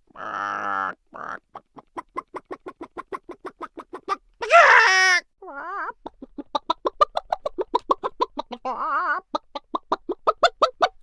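Cartoon chicken clucking sound effects: runs of short, quick clucks, about five a second, broken by a few longer, wavering squawks, the loudest about four and a half seconds in.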